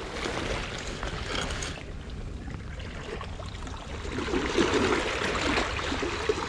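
Steady noise of falling rain and trickling water, growing somewhat louder and busier about four seconds in.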